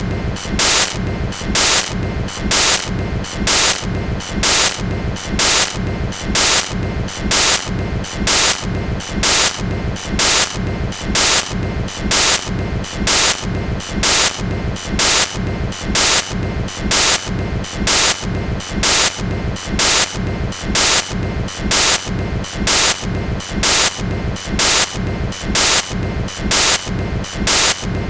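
Freight cars of a manifest train rolling past, their wheels clacking in a steady rhythm just under once a second over a continuous rolling rumble.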